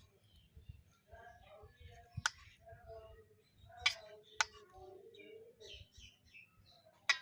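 Four sharp clicks or knocks, spaced irregularly, over faint voices in the background.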